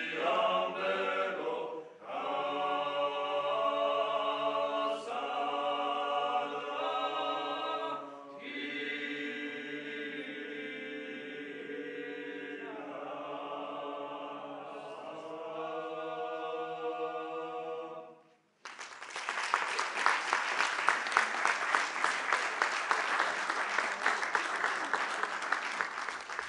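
Male vocal ensemble singing traditional Georgian polyphony unaccompanied, several voices holding chords in parallel, with short breaks between phrases. The song ends about eighteen seconds in, and after a brief pause the audience applauds.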